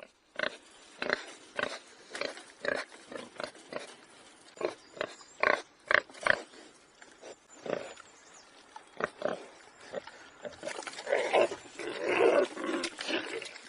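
An animal giving many short, sharp calls at irregular intervals, with a denser, louder flurry of calls near the end.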